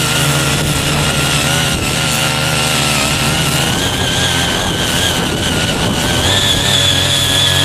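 Engine of a CY50 mini foldable cultivator running hard while deep-tilling, its speed wavering under load and picking up about six seconds in.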